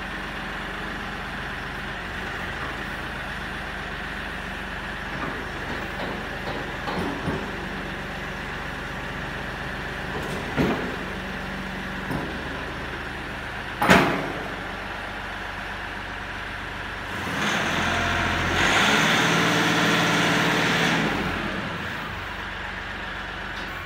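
Kioti DK4510 compact tractor's 45 hp diesel engine running steadily while the loader hydraulics work a front snowplow, with a few clunks, the loudest about 14 seconds in. The sound swells for about four seconds near the end.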